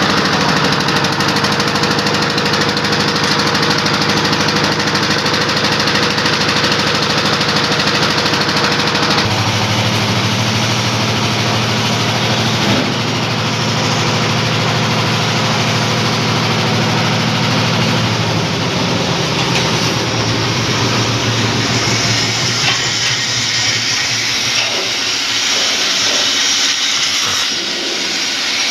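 Engine of a portable dhalai concrete mixer running steadily and loudly. About nine seconds in its pitch drops to a deeper, stronger tone, and in the second half the sound becomes rougher and less even.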